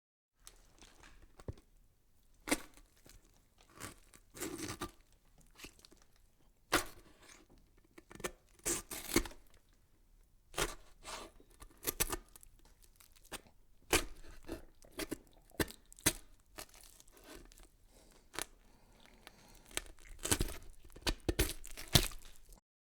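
Irregular sharp crackles and crinkling rustles in a small room, a couple of dozen of them, thickest and loudest near the end.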